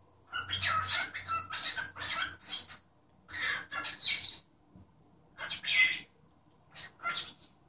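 Cockatiel giving harsh, rapid calls in four bursts: a long run of quick chatter over the first two and a half seconds, then three shorter bursts with short pauses between them.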